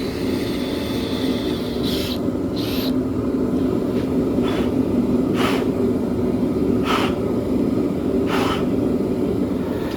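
Steady low droning noise of a running machine, with about six short clicks or taps spread through it.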